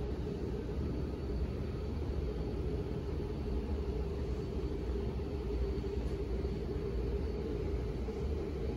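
Steady low rumbling background noise with no clear events, and a faint high-pitched whine held throughout.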